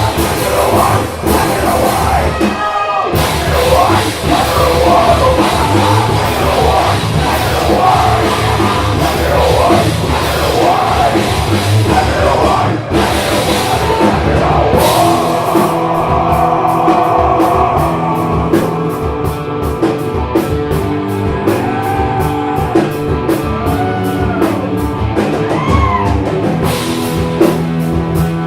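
Live rock band playing loud: drums, guitars and sung or shouted vocals. About two-thirds of the way through, the singing gives way to held notes over a fast, even drum beat, with a few sliding bends.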